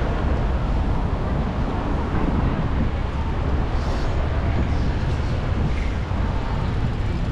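Steady outdoor city background noise: a continuous low rumble with a hiss above it and no single clear event.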